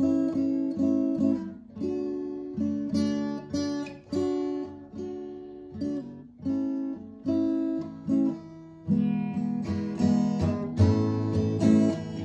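Acoustic guitar strummed in chords, with no singing; the strumming grows fuller and louder about three-quarters of the way through.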